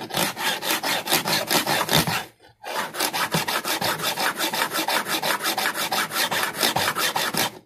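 A 35-degree fret-end bevel file in a block holder stroked quickly back and forth along the ends of extra-hard Gold EVO frets, beveling them: an even run of rasping file strokes, about five a second, with one brief pause about a third of the way in.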